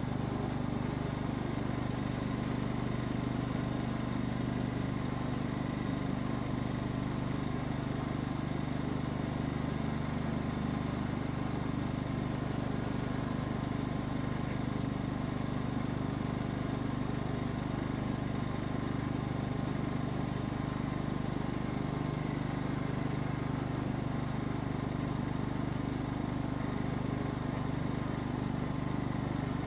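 Husqvarna lawn tractor's engine running at a steady speed while the tractor is driven along, heard close from the seat.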